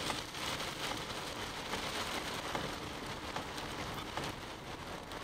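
Rain pattering on a moving car's windshield and roof, heard from inside the cabin, with scattered drop ticks over a steady low rumble of road noise.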